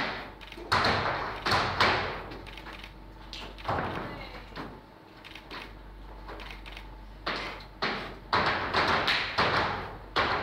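Flamenco dancers' percussive strikes on a wooden stage, footwork stamps and claps, ringing in the hall. The strikes come singly at first, thin out in the middle, then come quicker, about two a second, near the end.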